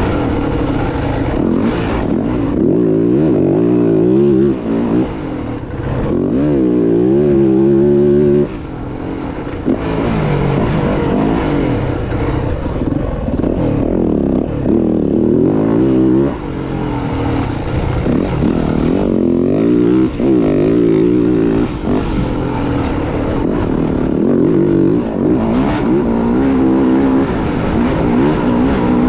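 Dirt bike engine running hard under riding load, its pitch repeatedly rising as the throttle opens and falling back, with brief sharp drops in level as the throttle is closed.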